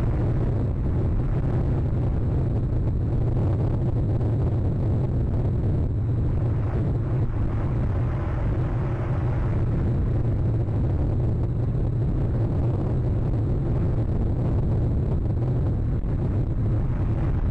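Storm wind buffeting the nest camera's microphone: a steady low rumble with gusts that swell and fade every few seconds.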